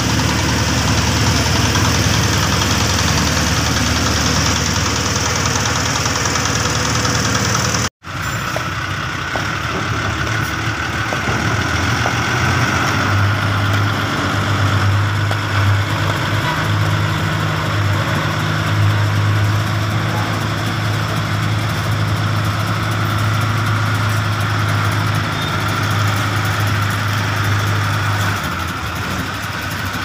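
Small walk-behind road roller's engine running steadily. After a sudden cut about eight seconds in, the engine of a pneumatic-tyred road roller runs steadily, with a low hum that comes in a few seconds later and fades near the end.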